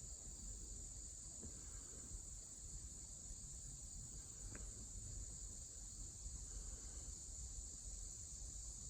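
Faint, steady, high-pitched chorus of crickets, over a low background rumble.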